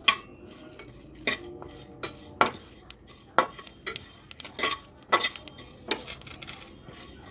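A spoon stirring cumin seeds, garlic and green chillies roasting in a pan, knocking and scraping against the pan with irregular clinks, some ringing briefly.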